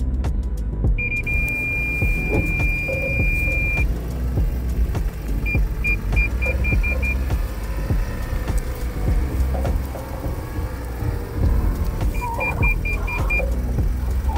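Toyota Land Cruiser 300 creeping through a full-lock U-turn in crawl control with turn assist, heard from inside the cabin as a steady low rumble with scattered clicks. Over it the parking-sensor warning sounds: one continuous high beep for about three seconds from about a second in, then a run of quick short beeps midway and another near the end, as the front closes on the bushes.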